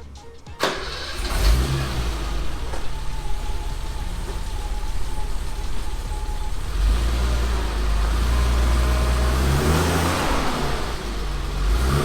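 BMW E28 535is straight-six engine running and revved a couple of times, its pitch rising and falling. It starts abruptly about half a second in. The engine is running on a spare ECU after a crank-no-start fault.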